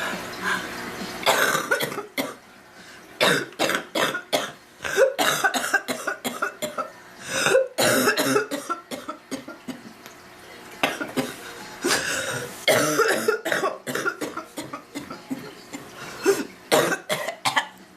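A woman coughing hard in repeated fits: runs of quick, harsh coughs in several bouts, with short pauses between them. It is the coughing of an acute illness.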